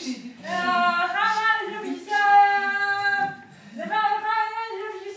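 A person singing long, high held notes without accompaniment, in three drawn-out phrases with short breaks between them.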